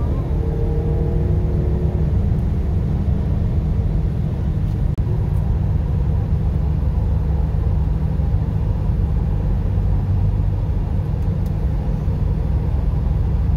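Steady low road and wind noise inside a car's cabin at highway speed, with strong wind blowing around the car. Faint wavering tones sound over it for the first two seconds.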